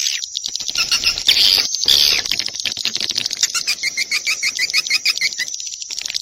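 Recorded swiftlet calls used as a lure for swiftlet houses: a dense, rapid, high-pitched twittering chatter. In the middle comes a quick run of about ten short repeated chirps, roughly five a second.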